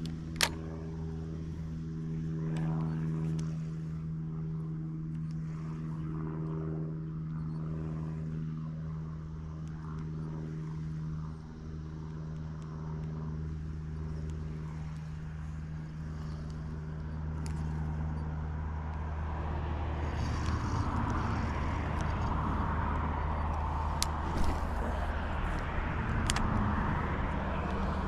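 An engine hums steadily for about twenty seconds, then gives way to a broader rushing noise. A few sharp clicks or taps are heard, one near the start and a couple near the end.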